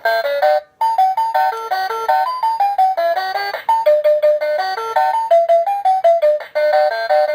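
Toy talking cash register playing an electronic beeping tune of quick notes after its barcode scanner reads an item, with a short break under a second in.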